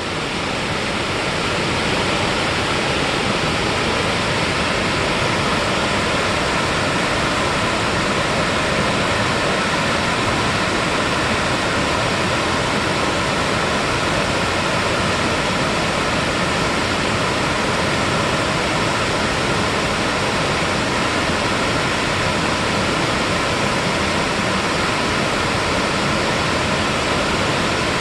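Mountain valley stream water rushing, a steady full noise that fades in over the first second or two and then holds.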